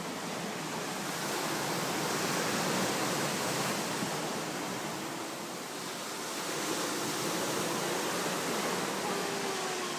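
Sea surf: a steady rush of waves breaking and washing in, swelling a couple of seconds in, easing off midway, and building again.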